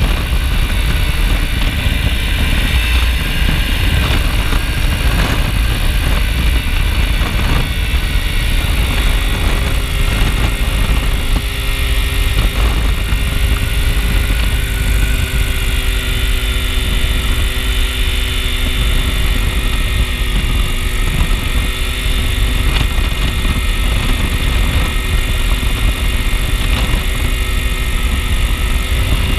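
Ultralight aircraft's engine and propeller running steadily in cruising flight, at a constant, unchanging pitch, heard from the open cockpit with a heavy low rumble of wind on the microphone.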